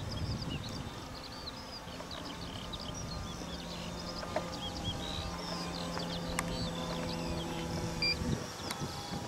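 Brushless electric motor and 19x8 wooden propeller of a large radio-controlled Stampe SV4 biplane model, heard as a steady hum overhead that drops away near the end. Many birds chirp throughout.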